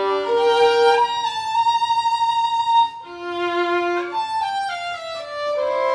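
Solo violin playing a slow melody: a long held high note about a second in, then a run of shorter notes stepping up and down.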